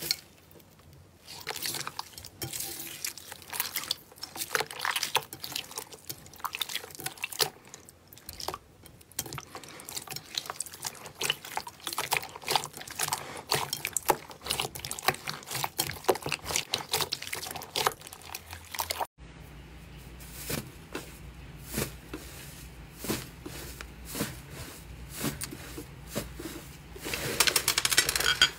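Slime being squished and worked by hand: dense sticky crackling and popping clicks. Two-thirds of the way through the sound cuts to a second clip with a steady low hum under sparser squishes.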